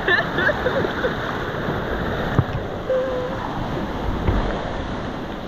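River water rushing and splashing, a steady noisy wash.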